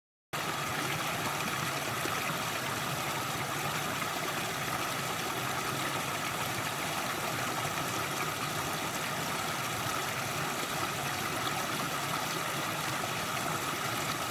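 A steady, even rushing noise that starts suddenly just after a moment of dead silence.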